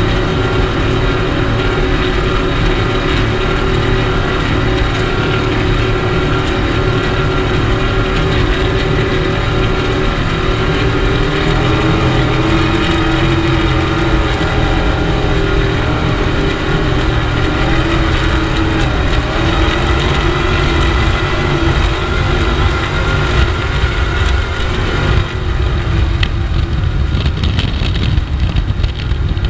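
Skater performance boat's engines running hard at high speed, a loud steady drone heard from the open cockpit. About 25 seconds in, the higher part of the engine sound drops away and the note eases.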